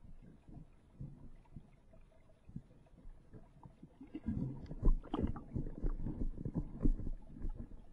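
Muffled water swirling and low, irregular knocks heard underwater, from a hand and a smallmouth bass moving in the river current. The knocks grow louder and busier about halfway through.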